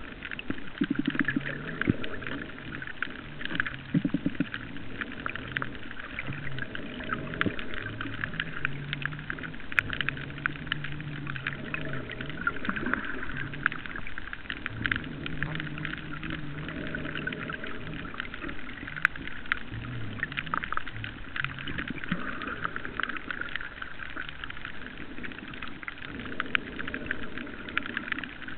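Underwater reef ambience recorded through a camera: a dense, steady crackle of tiny clicks, with a low hum underneath that shifts up and down in pitch. There are a couple of brief low rushes about a second in and again around four seconds.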